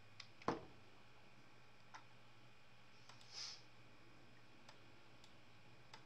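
Near silence: quiet room tone with a few faint clicks and ticks, one sharper click about half a second in, and a short soft hiss a little past the middle.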